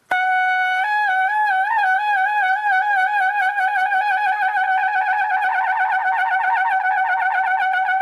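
Trumpet playing a shake (lip trill) on a high note: a held note that begins slowly slurring back and forth to the note just above, speeds up gradually into a fast, even trill, and settles back onto the steady held note near the end. The notes are changed by lip slurs driven by fast air and tongue movement rather than the valves.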